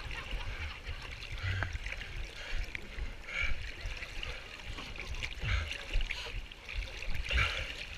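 Lake water sloshing and lapping close around a canoe sitting low in the water, with an uneven low rumble underneath.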